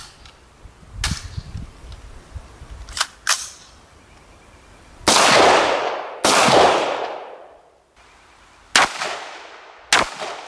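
AR-15 rifle firing single shots at irregular intervals, about seven in all, the two loudest in the middle each followed by a long echo dying away.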